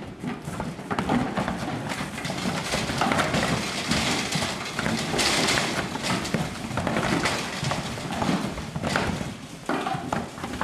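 Highland cattle clattering and thudding with their hooves down a livestock trailer's stepped ramp as they unload one after another, an irregular run of knocks.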